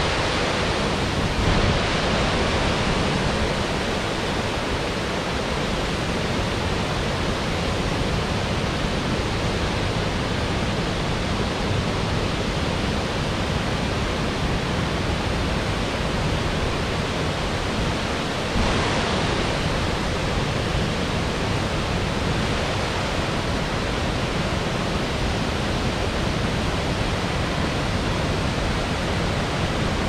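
The 40-metre Ézaro waterfall of the Xallas river, pouring down the granite into its pool: a loud, steady rush of falling water, a little louder from about 19 seconds in.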